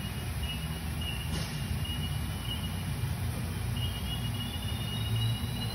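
Haas VR-9 vertical machining center running: a steady low hum with a thin high whine that comes and goes, and a faint tone that slowly rises from about four seconds in.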